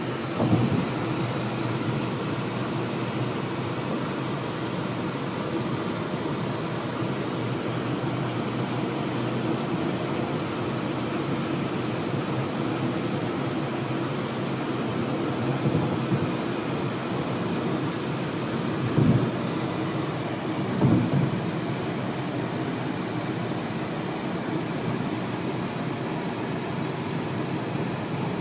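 Steady roar of strong sandstorm wind, with a few gusts thumping on the microphone, about half a second in and twice near the two-thirds mark.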